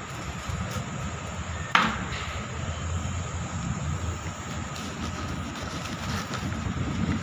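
Long kitchen knife slicing through the crust of a baked French bread loaf on a cutting board, with one sharp knock about two seconds in, over a steady low hum.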